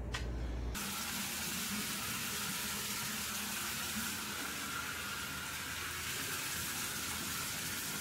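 Water running steadily into a bathtub, a continuous rush that starts abruptly about a second in.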